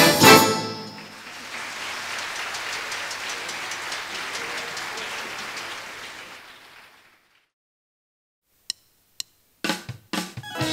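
A choir and band end a song on a final chord, followed by audience applause that fades out about seven seconds in. After a short silence come a few sharp clicks and knocks near the end, just before the next song starts.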